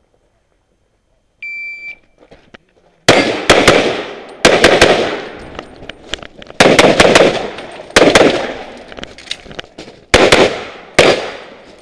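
Electronic shot-timer beep for the start signal, then a compensated Tanfoglio pistol in .38 Super fired in quick pairs, six double taps about a second or more apart, each shot sharp and loud with a short ringing tail.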